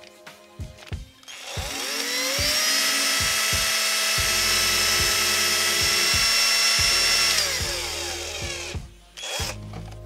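Cordless drill motor spinning up to a steady whine, running for several seconds and then winding down to a stop as it twists two insulated wires into a spiral pair. Background music with a steady beat plays underneath.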